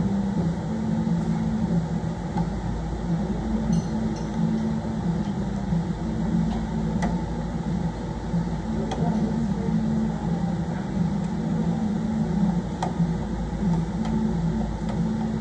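Steady low mechanical hum of a fan or air-handling unit running. A few faint, sharp clicks sit on top of it while plastic trim at the car's front is being worked on.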